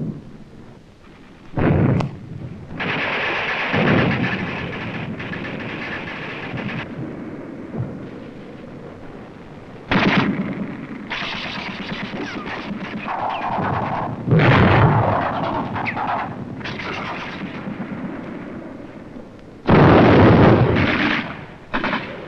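Battle sounds of shells exploding among the infantry, with gunfire in between. A run of sudden loud blasts comes about 2, 10 and 14 seconds in, and the loudest near the end, with rumbling and crackling between them.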